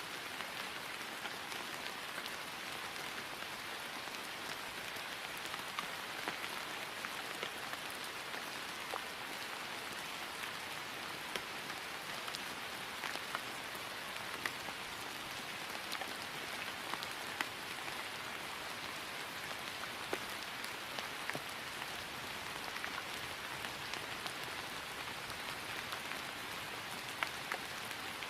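Steady rain falling on grass: an even hiss with many small, scattered drop ticks.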